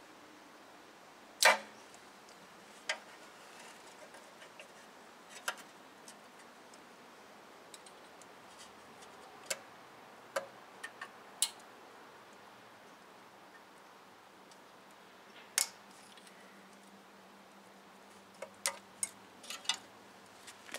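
Scattered sharp metal clicks and taps of hand tools prying at a stuck ABS wheel speed sensor in a Toyota Tacoma's front steering knuckle. The loudest comes about a second and a half in, and there is a quick cluster near the end as the sensor works loose.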